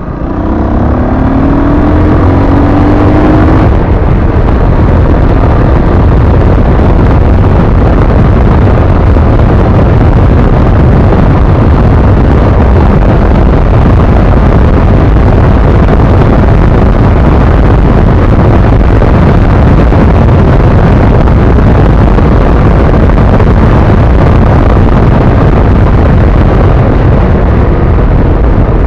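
ZiD 250 motorcycle accelerating, its engine note rising for about four seconds. Then a loud, steady rush of wind noise at speed drowns the engine out.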